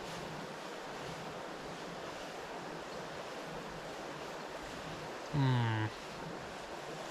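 Steady rush of river water. About five seconds in, a short low pitched hum sounds once for about half a second.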